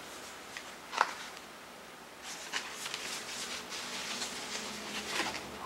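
A cardboard CD digipak being handled and opened: a sharp tap about a second in, then faint paper-and-card rustling with light ticks.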